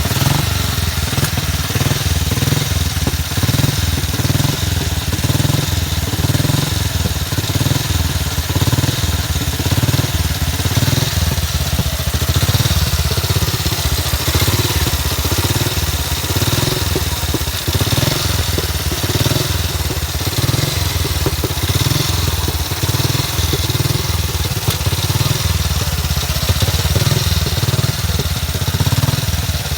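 Vintage motorcycle's Velocette engine, fitted in a BSA frame, running steadily and loudly at idle with a pulsing exhaust beat, freshly kick-started.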